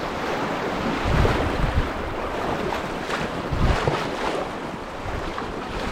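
Rushing water of a glacier-fed river around a packraft, a steady noise, with wind buffeting the microphone in a few low rumbles.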